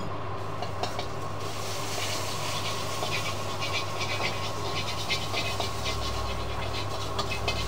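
Yellow Hokkien noodles sizzling and hissing in a ridiculously hot wok, with fast crackling that starts about a second and a half in, over the steady low rumble of the gas wok burner.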